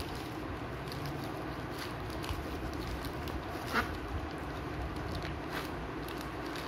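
Blue polyethylene courier mailer bags rustling and crinkling as a rolled stack is pressed flat by hand, with one sharper crackle nearly four seconds in.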